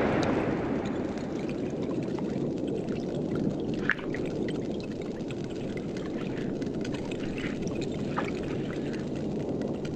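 Underwater ambience of a steady watery rush, with scattered faint clicks and two sharper snaps, about four seconds in and about eight seconds in, from snapping shrimp (pistol shrimp) closing their claws.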